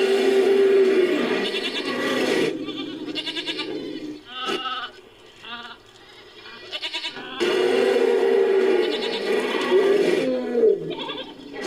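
Designed creature calls built from goat and sheep bleats: long, wavering bleats, with a quieter stretch in the middle before another long call.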